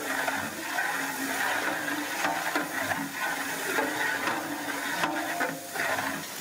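Vegetables frying in oil in a large metal cooking pot, sizzling steadily as a long ladle stirs them, with a few knocks and scrapes of the ladle against the pot about five seconds in.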